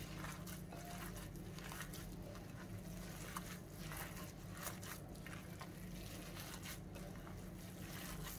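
Gloved hands kneading a wet mixture of raw lamb mince, grated onion, egg and bulgur in a glass bowl. Faint, irregular squelching and squishing over a low steady hum.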